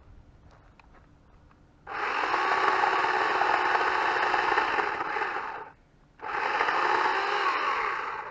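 Electric chainsaw cutting a dead tree, run off a solar generator's inverter: quiet for about two seconds, then a loud run of nearly four seconds, a short pause, and a second run that cuts off near the end.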